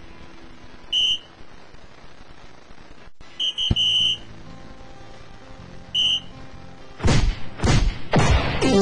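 Dartslive electronic dartboard sound effects: three short, high electronic hit tones as the darts score, about a second in, around three and a half seconds and about six seconds in, then from about seven seconds a loud run of sweeping effects as the board plays its award graphic. Steady background music underneath.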